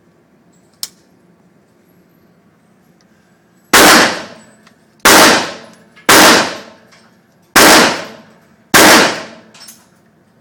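Five AR-15 rifle shots fired one at a time, about a second or so apart, each a sharp, very loud crack with a ringing tail. A faint click comes about a second in.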